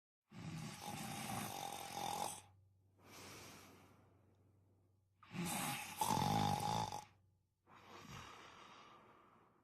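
A person snoring: two loud snores, each about two seconds long, each followed by a quieter breath that fades away.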